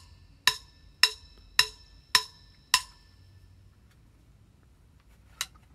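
Six sharp, ringing percussive clicks at an even pace, a little under two a second, then a single softer click near the end.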